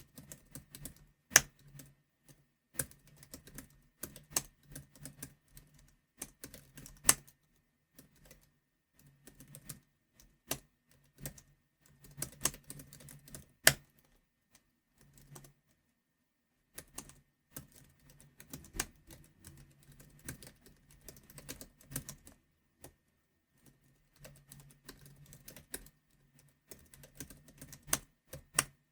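Computer keyboard typed on firmly: runs of quick keystrokes broken by short pauses, with a few single keys struck much harder and louder than the rest.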